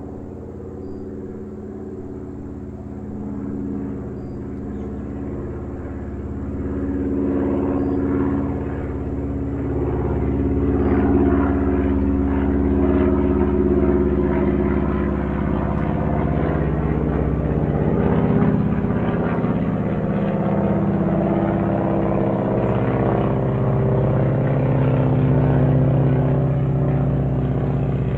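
Airplane flying over: a steady engine drone of several low tones that drift a little in pitch, growing louder over the first dozen seconds as it approaches and then staying loud.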